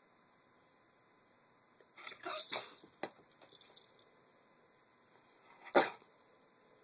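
Bedlington terrier barking to beg for a fry: a quick run of short yips about two seconds in, then a single sharp bark near the end.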